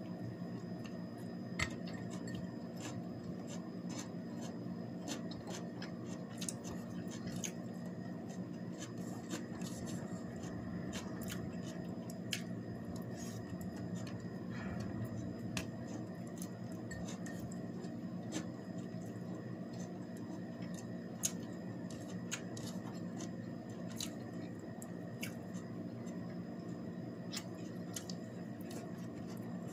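Someone eating by hand: scattered small clicks and chewing sounds over a steady low room hum.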